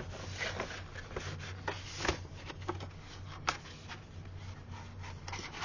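Paper rustling as folded maps and printed handouts are handled, a run of short soft rustles with a few sharper crackles, over a steady low hum.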